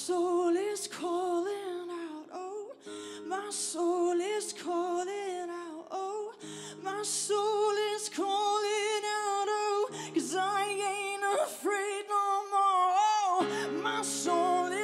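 A woman singing a long, ornamented melody with vibrato, live, over held piano chords that change every three to four seconds.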